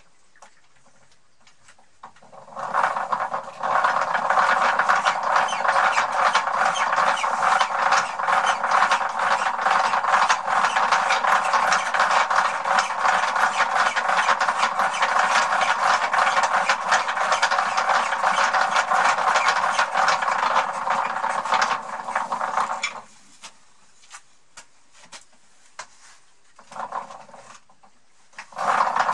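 Homemade foot-operated wooden lathe running: the treadle-driven wooden gear train spins the chuck at speed, giving a loud, dense, fast clatter of meshing teeth. It starts a couple of seconds in, stops about three-quarters of the way through, gives a short spurt, and starts again at the very end.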